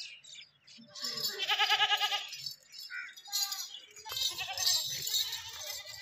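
Beetal goats bleating: one long, wavering bleat about a second in, followed by shorter bleats near the end.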